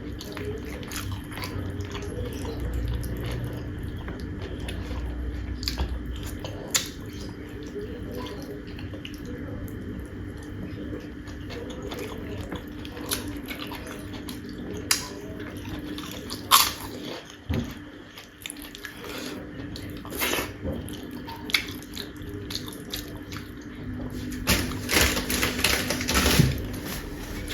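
Close-miked eating sounds: wet chewing and mouth sounds with scattered sharp clicks, over a faint steady hum. Near the end comes a short run of rapid clicks.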